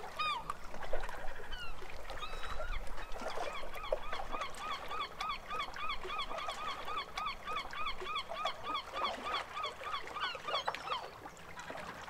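A flock of birds calling: many short, arched, honking calls repeating rapidly, about four a second, overlapping one another and thinning out near the end.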